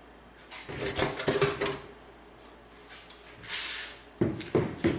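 Loose computer parts being handled: a cluster of clattering knocks, a short rustle or scrape, then a few sharp knocks near the end.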